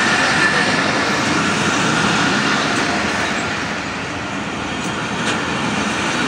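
Passenger train coaches rolling past on the track, a steady loud rumble of wheels on the rails with a faint high-pitched wheel squeal in the first couple of seconds.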